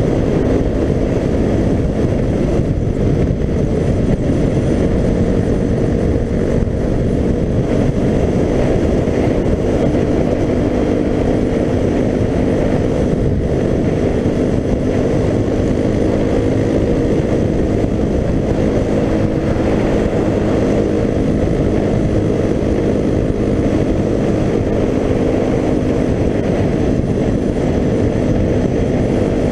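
Suzuki DR-Z250's single-cylinder four-stroke engine running at a steady cruise, its pitch holding nearly level, under a heavy rush of wind on the microphone.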